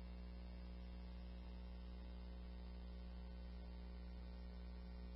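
Steady low electrical hum with faint hiss and nothing else: the background of the radio recording between transmissions.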